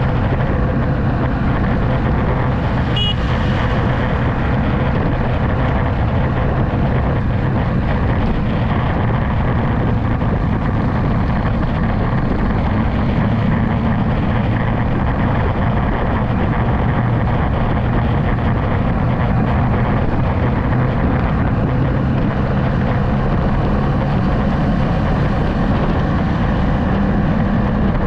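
A vehicle's engine running steadily at cruising speed, with wind and road noise blowing over the microphone.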